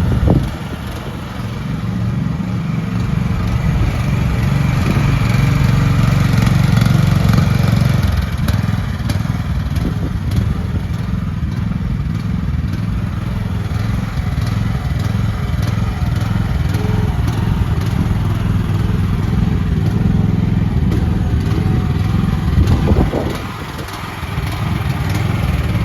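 The small gas engine of an AGT QH13R mini excavator running throughout while the machine is worked in a demo. The engine note rises and falls with the load, with a few light clanks and a short dip in level near the end.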